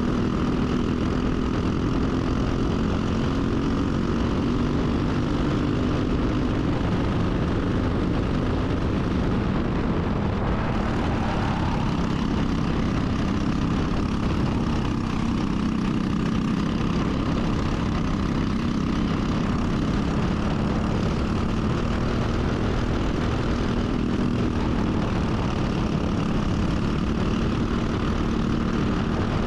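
Racing kart's Briggs & Stratton single-cylinder four-stroke engine running continuously under race load, with steady wind and tyre rush; its pitch shifts a little every few seconds as the revs change.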